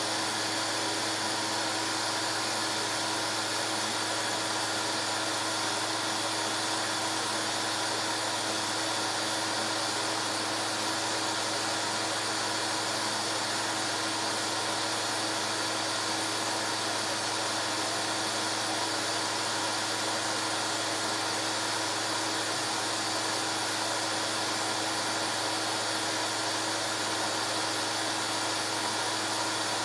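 A film projector running: a steady motor-and-fan whir with a constant low hum, unchanging.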